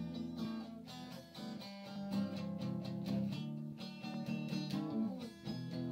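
Background music: a guitar being picked and strummed, moving through a run of chords.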